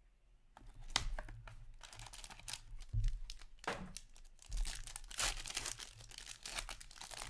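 Plastic wrapping on a box of hockey trading cards being torn open and crinkled by hand, in irregular bursts of crackling with several louder rips.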